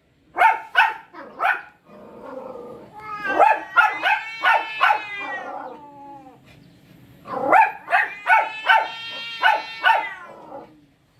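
Two cats in a nose-to-nose standoff yowling at each other. It opens with a few short calls, then a long drawn-out yowl whose pitch sinks slowly, then another run of quick pulsing calls near the end.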